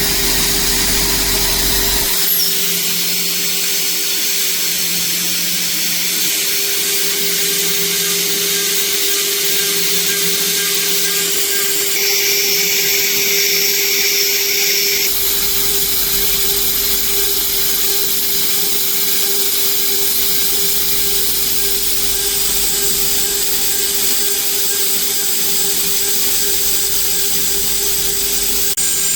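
CNC router spindle machining a 6061 aluminium part: a steady high hiss over a constant tone, changing abruptly about two seconds in and again about halfway through.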